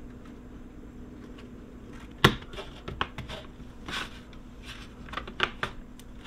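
Handling sounds of a fan shroud being pressed down over a network card in a mini PC's case: one sharp click a little over two seconds in, then several lighter clicks and taps, over a faint steady hum.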